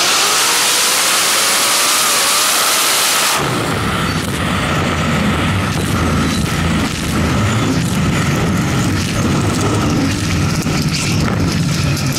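Supercharged Hemi V8 of an Outlaw 10.5 Valiant drag car at full throttle down the strip: a dense, loud roar with a faint rising whine. About three and a half seconds in, the roar cuts off abruptly as the throttle closes, and the engine drops to a lower, uneven rumble with crackles as the car rolls on.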